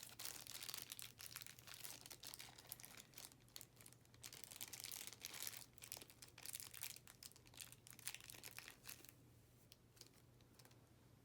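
Plastic toy packaging crinkling and tearing as it is handled and torn open by hand, in quick irregular crackles that die away near the end.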